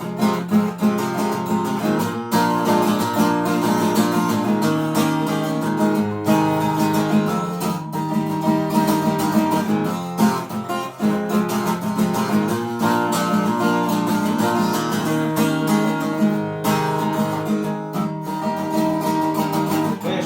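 Acoustic guitar being strummed, playing chords steadily with no singing.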